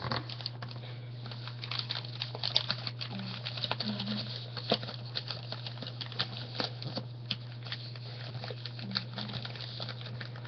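Lined notebook paper being folded and creased by hand: irregular rustling, crinkling and light taps over a steady low hum.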